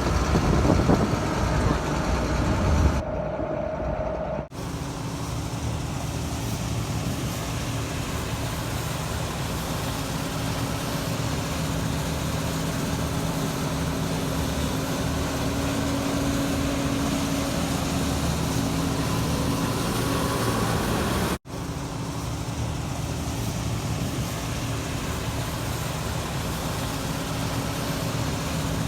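Heavy farm machinery engine running steadily with a low hum, broken by a few abrupt cuts, the longest a brief dropout about 21 seconds in.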